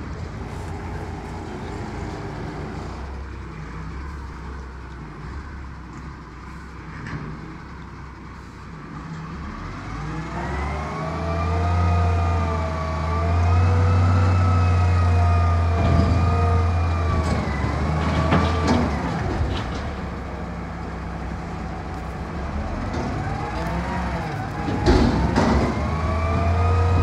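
Iveco ACCO garbage truck's diesel engine running, joined about ten seconds in by a louder deep drone and a wavering whine that rises and falls in pitch, with a few knocks later on.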